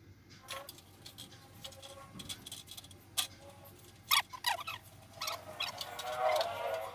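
Knocks and clatter of a split AC outdoor unit's metal casing and condenser being handled and tilted, with a sharp knock about four seconds in and a brief wavering pitched squeak near the end.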